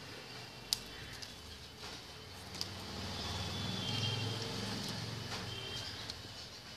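A low rumble swells and fades in the middle, with a few sharp clicks and faint high chirps.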